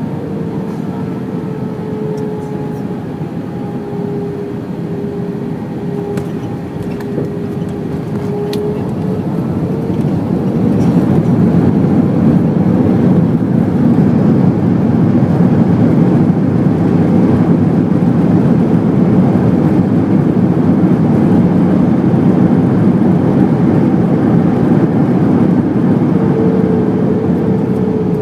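Airbus A321 jet engines heard from inside the cabin: a steady whine with a slowly falling tone, then about ten seconds in a louder, deeper rumble that holds until near the end. This is typical of landing, with the engines spooling up into reverse thrust as the plane rolls out on the runway.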